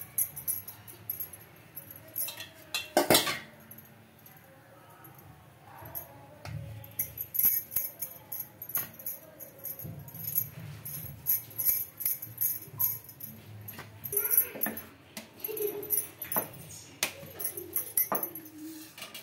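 Metal bangles jingling and clinking on a wrist in quick bursts as hands shape chapati dough into balls and roll it out, with a single knock about three seconds in.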